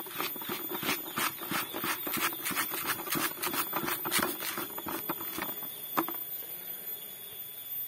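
Granular MKP and calcium nitrate fertilizer being shaken and swirled in a bucket to mix, the granules rattling in quick strokes, several a second. The rattling stops about five and a half seconds in, followed by a single sharper click.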